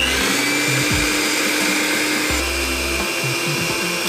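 Vitek electric hand mixer whipping cream in a stainless-steel saucepan, its motor running at speed with a steady whine that shifts slightly in pitch about halfway through.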